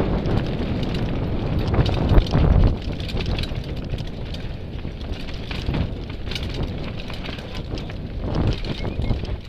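Mountain bike descending a dirt singletrack: wind buffeting the onboard camera's microphone, with tyres rolling over dirt and stones and the bike rattling over many small bumps. A heavy thump, the loudest moment, comes a little over two seconds in.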